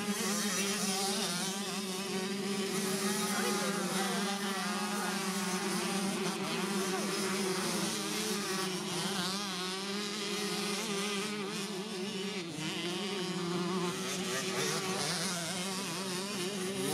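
Several small two-stroke minicross bikes riding round the track, their engines buzzing and revving up and down as they pass. A steady lower engine drone runs underneath.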